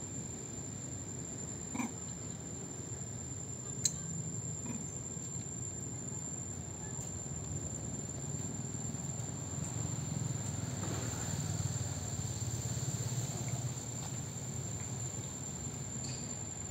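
An insect calling with one steady high-pitched tone throughout, over a low background hum, with a few brief faint clicks about two and four seconds in.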